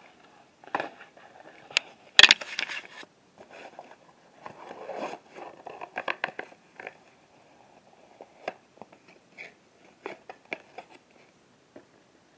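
Handling noise: scattered clicks, taps and rustles as a videotape box and the camera are moved about. The loudest is a sharp click about two seconds in.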